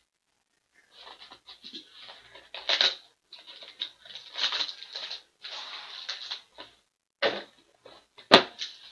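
Foil-wrapped hockey card packs crinkling and small cardboard boxes being handled on a tabletop, with two sharp knocks near the end.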